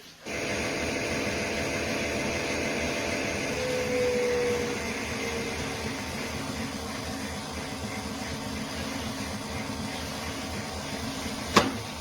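Toy washing machine playing its recorded washing-program sound: a steady whirring machine noise that starts abruptly, with a short hum about four seconds in and a sharp click near the end.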